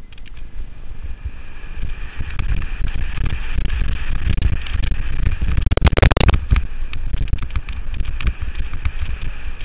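Niner ONE 9 single-speed mountain bike being ridden over a dirt trail, with wind buffeting the action camera's microphone over the rumble and rattle of the tyres and bike on rough ground. A harsher burst of clatter comes about six seconds in.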